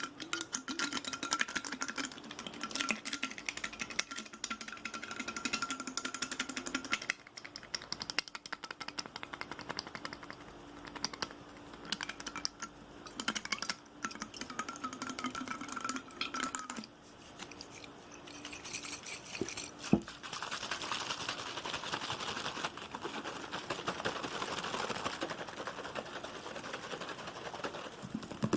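Fast, aggressive ASMR tapping: dense rapid taps on objects. For the first two-thirds the taps come with steady ringing tones. About two-thirds through comes a stretch of rushing, hiss-like noise.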